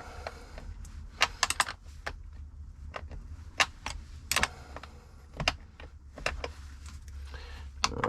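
Metal spanner clinking on leisure-battery terminal bolts as they are tightened: irregular sharp metallic clicks, roughly one a second.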